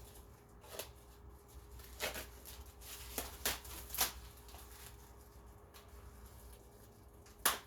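Tool packaging and tools being handled: scattered crinkles and clicks, a handful of separate sharp handling noises with the loudest one near the end.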